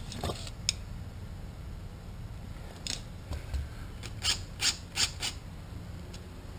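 Keyless chuck of a cordless drill being twisted tight by hand: a few light clicks, then four short rasping bursts about three a second, before the drill is run.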